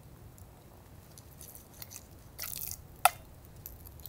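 Seasoning shaken from a small plastic spice container onto a raw steak in a pan: faint grainy rattles and a short hiss of falling grains, with one sharp click about three seconds in.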